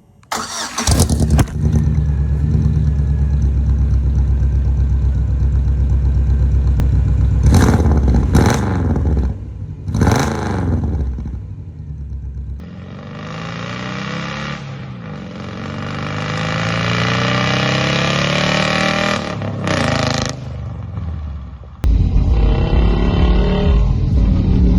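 Four-cylinder engine on a true dual exhaust, its headers paired so that two cylinders fire one after another out each pipe, running with a deep low note and blipped three times in quick revs. After a cut it is heard under way, pitch rising and falling as it accelerates, then running steadily again.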